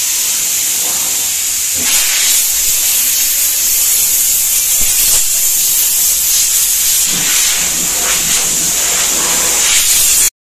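Compressed air hissing steadily as it blows dust off a car's body in the paint booth before painting. The hiss cuts off suddenly near the end.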